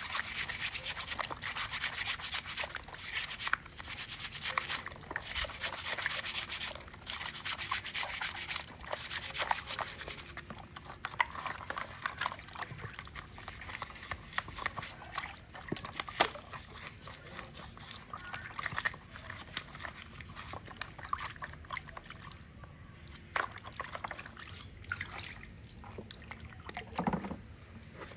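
A stiff brush scrubbing a black binocular part in soapy water, stroke after stroke. The scrubbing is loud and steady for the first third, then lighter and more broken, with small wet knocks.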